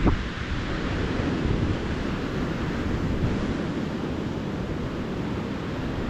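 Calm ocean surf washing onto a beach, a steady wash of water with a low wind rumble on the microphone that swells briefly at the very start.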